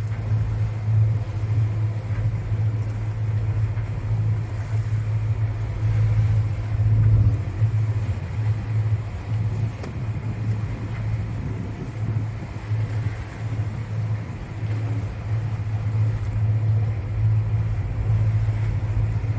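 Sailing yacht's inboard engine running steadily under way, a constant low drone.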